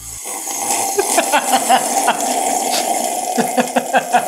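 A man slurping coffee from a mug in one loud, really long sip, drawing in air and liquid together with many small crackles. It starts just after the beginning and keeps going.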